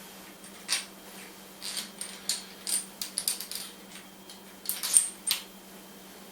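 Small metal lathe parts clinking and tapping together in a string of sharp, irregular clicks with a faint high ring, the loudest about five seconds in, as the Rivett 608's gearbox and its bolts are handled for fitting.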